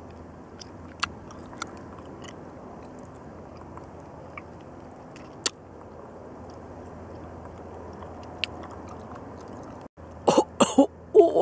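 A few faint mouth clicks over a steady low hiss, then near the end a loud burst of coughing and throat clearing from a woman eating chili-coated candy.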